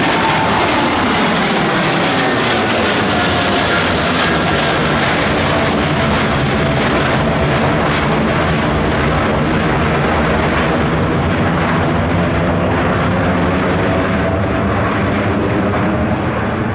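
Boeing 787-8 airliner's twin Rolls-Royce Trent 1000 turbofans, loud and steady as the jet flies past, with engine whines that slowly fall in pitch.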